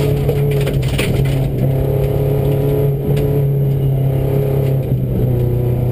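Inside a Subaru rally car's cabin at full stage pace: the flat-four engine running hard, its pitch stepping with brief dips as it changes gear about halfway and near the end. Gravel ticks and clatters against the underside throughout.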